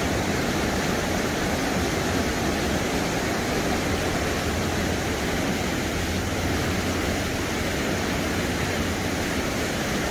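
Steady rush of a flood-swollen, muddy river pouring over a weir in rapids.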